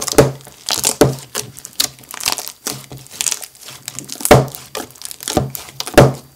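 Bead-filled slime squeezed and pulled apart by hand in a glass bowl and a plastic tub: an irregular run of wet crackles, squelches and pops, with the loudest pops about four and six seconds in.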